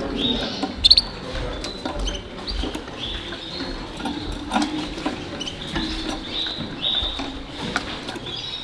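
Many canaries in show cages calling and chirping: short, high notes, some sliding down in pitch, overlapping throughout, with a few sharp clicks and a low murmur underneath.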